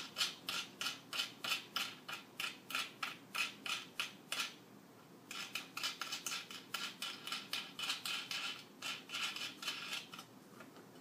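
A small screwdriver twisted back and forth against a screw in a board, making rhythmic metallic rasps about three a second, in three runs with short pauses between them.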